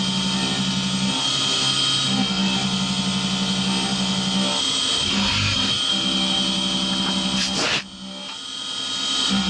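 SkyfireCNC SVM1-VMC mill cutting aluminium under flood coolant: a steady whine over a low hum, with brief dips as the cutter works. Near the end a short rush comes, the sound drops away for about a second, then the cut comes back.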